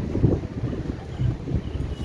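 Wind buffeting the microphone: an uneven, gusty low rumble that rises and falls in surges.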